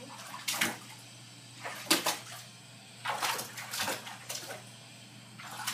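Bare feet stomping and splashing in shallow water in a jetted bathtub: a handful of irregular splashes, the sharpest about two seconds in.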